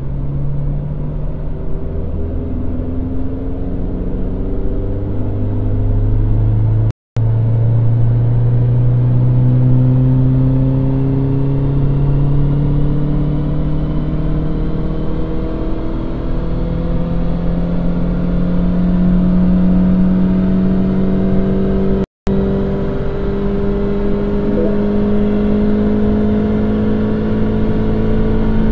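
Mini Cooper R56 1.6 naturally aspirated four-cylinder petrol engine at full throttle in a single long dyno pull after a stage 1 remap. Its pitch rises slowly and steadily, then falls away at the very end as the pull is ended. The sound cuts out for an instant twice.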